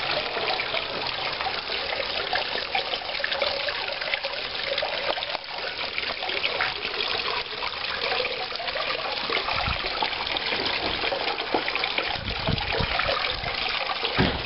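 Water splashing and trickling steadily into a small rock pond, with a few low bumps near the end.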